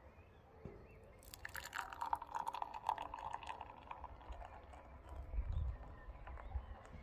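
Kelt beer poured from an opened can into a glass, splashing and fizzing as the head of foam builds, starting about a second in. A low rumble comes near the end.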